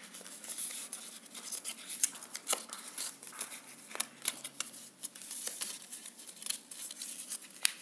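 A sheet of paper being folded and creased by hand, making irregular crisp rustles and crackles.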